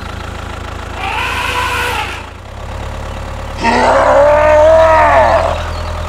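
Steady low engine hum under two drawn-out cow moos: a shorter, higher one about a second in, and a longer, louder, lower one that swells and falls away in the second half.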